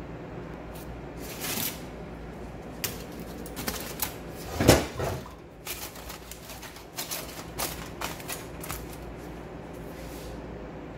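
Aluminium foil crinkling and crackling in irregular bursts as it is pressed over a glass baking dish, with one louder bump about halfway through, over a steady low hum.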